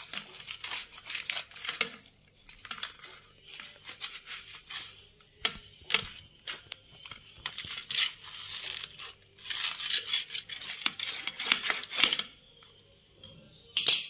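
Pizza-cutter wheel rolling and pressing through grilled, toasted sandwich bread on a plate, a run of crisp crunches and scrapes that is loudest about two-thirds of the way through and dies away near the end.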